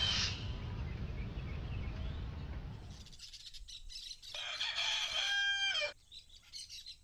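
A low rumble fades out over the first three seconds, then a rooster crows once, a single long call of about a second and a half.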